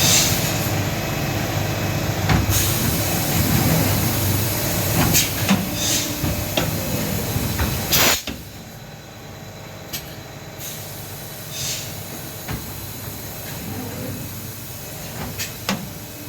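Two-head blow moulding machine for plastic bottles running, with sharp hisses of compressed air every few seconds. Its steady running drops sharply in level about halfway through.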